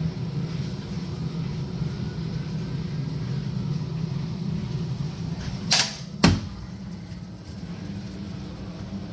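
Steady low hum of water running through a combi boiler's filling loop, then a brief hiss and a sharp click about six seconds in, after which the hum eases.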